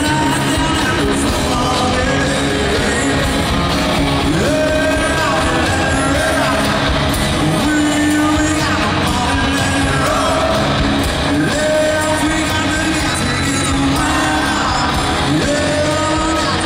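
Male country singer singing lead over a live country-rock band with electric guitars and drums, heard from the crowd in a large arena with its echo.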